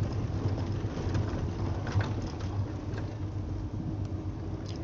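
Steady low engine hum and road noise of a vehicle on the move.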